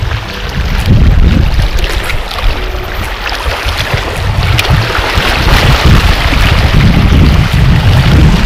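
Wind buffeting an action camera's microphone in gusts, with small waves washing and splashing against the rocks of a breakwater.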